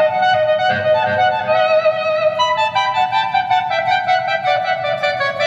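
Electric guitar played with volume swells, the volume worked by a Seymour Duncan YJM speed pot while picking: each sustained note fades in without a pick attack, and the notes overlap with delay echoes into a smooth melodic line.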